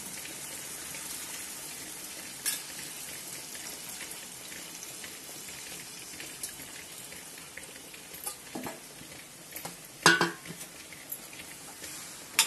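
Taro root pieces in hot oil sizzling steadily in a kadai as tamarind water is poured in, with a steel spoon stirring and clinking against the pan a few times; the loudest clink comes about ten seconds in.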